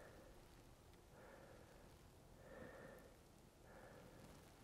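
Near silence with faint, regular breathing, one soft breath about every second.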